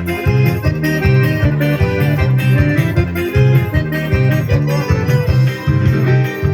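Instrumental forró music: electronic keyboard and guitar over a steady beat, with no singing.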